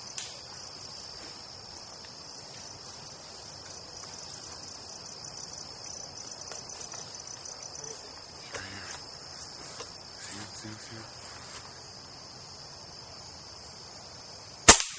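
Steady high-pitched chorus of insects, then a single sharp, loud gunshot near the end, fired at a squirrel up in the trees.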